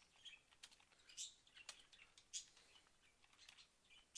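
Faint, irregular clicks of a computer keyboard being typed on.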